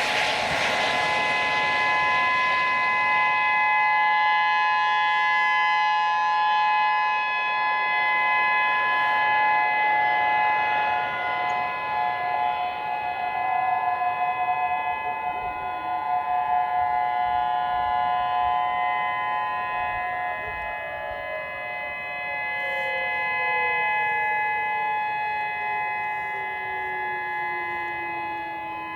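Outdoor warning sirens, a Whelen 3016 and distant Federal Signal 2001s, sounding a steady alert tone during a siren test, several pitches held together. About two-thirds of the way in, one siren's pitch starts a slow, steady fall as it winds down.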